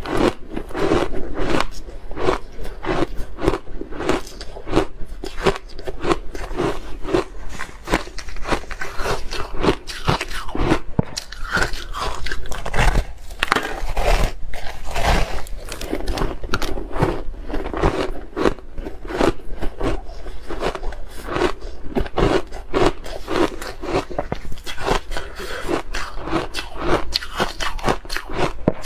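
Hard ice being bitten and chewed, with rapid, irregular crunches and cracks as chunks of frozen bar ice coated in matcha powder break between the teeth.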